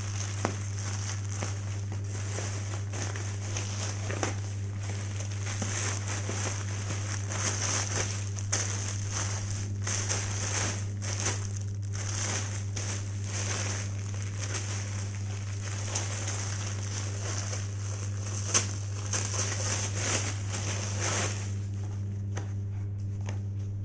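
Packaging being handled and opened, crinkling and rustling irregularly over a steady low hum; the crinkling stops a few seconds before the end.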